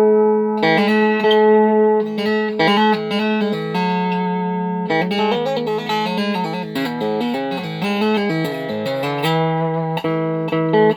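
Evancho solidbody strummer, a dulcimer-style fretted string instrument, being played: a picked melody over steady drone strings, with the notes coming quicker in the middle.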